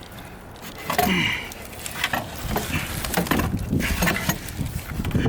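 Irregular metal clunks, knocks and scraping as a heavy turbocharger is worked loose and lifted out of a diesel engine bay. The clunks grow busier from about halfway in.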